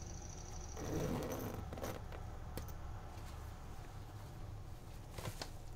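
Zipper of a soft insulated cooler bag being pulled closed: a short zip about a second in, then a few small clicks and rustles as the bag is handled.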